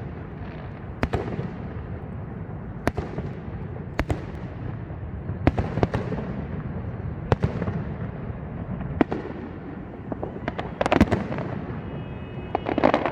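Fireworks salute: about ten sharp bangs one to two seconds apart, each trailed by an echo, with a denser burst of crackling reports near the end.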